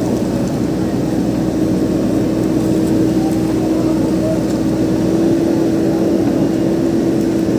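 JCB backhoe loader's diesel engine running steadily while its bucket pushes against a crashed pickup truck: a loud, even drone with one constant tone over it.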